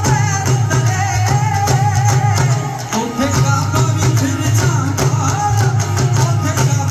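Punjabi folk music for the Luddi dance: singing over a steady dhol drum beat.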